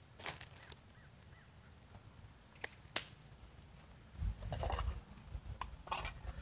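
Outdoor quiet with a few faint bird chirps, then two sharp clicks of tableware being set on a picnic table about three seconds in, the second one the loudest sound. A low rumble with rustling comes in for the last two seconds.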